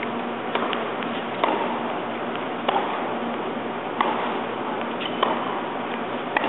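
Tennis ball being struck by rackets during a serve and rally on an indoor hard court: sharp pops about every second and a quarter, some with smaller bounce clicks between, over a steady arena hum.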